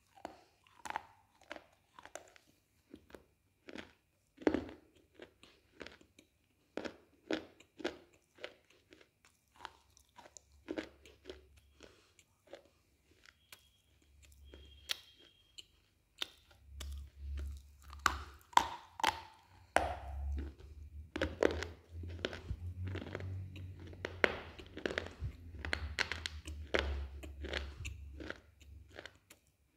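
Person biting and chewing black slate, a run of sharp, crisp crunches and grinding chews at an irregular pace. The crunching gets busier and louder from about halfway through.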